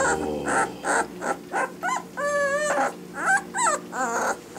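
A 19-day-old Bernese Mountain Dog puppy whimpering and squeaking in a run of short, rising-and-falling whines, with one longer wavering whine about two seconds in.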